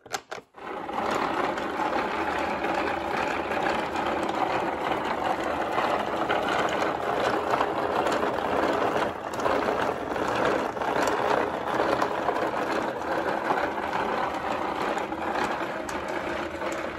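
Battery-powered wooden model car running: its motor drives the wooden gears, gearbox and odometer with a steady, dense clatter of fine clicks, starting about half a second in.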